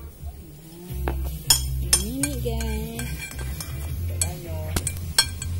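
Metal spoon clinking and scraping against a ceramic plate of fried rice as a toddler eats, a series of sharp clinks spread through the middle and end.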